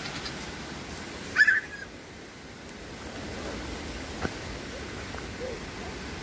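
A young goat bleats once, a short high-pitched cry about a second and a half in, over a steady background hiss. A single faint tick follows a few seconds later.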